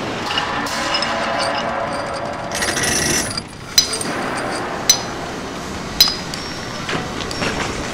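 Workshop tool noise: a steady clatter with sharp knocks, three of them about a second apart in the middle.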